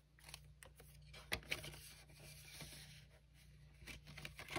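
Faint rustling of a ring binder's plastic cash-envelope pages being flipped and opened, with a few soft clicks and taps scattered through.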